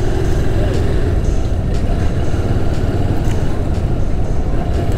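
Honda Hornet motorcycle riding at about 30 km/h, gently gaining speed. Its engine and the road make a steady low rumble, picked up by a lavalier microphone fitted in the rider's helmet.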